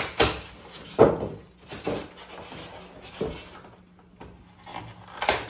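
Several irregular knocks and thumps, the loudest about a second in, as a steel Yukon roll-cart toolbox is tilted up on its end and its foam and cardboard packing is pulled and broken off.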